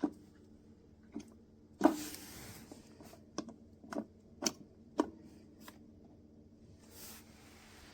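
Plastic clicks and knocks from the Brentwood KT-2150BK iced tea and coffee maker being handled: about eight uneven sharp knocks, the loudest about two seconds in with a short hiss after it, over a faint steady hum.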